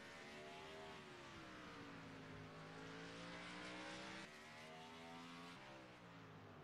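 Race car engine running at a distance, its pitch falling and then climbing as it slows and accelerates, with abrupt pitch steps like gear changes about four and five and a half seconds in.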